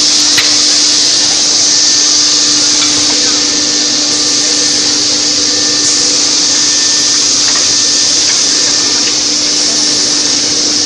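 Automatic canvas frame cutting and forming machine running with other factory machinery: a loud steady hiss over a steady low hum, with a few faint clicks.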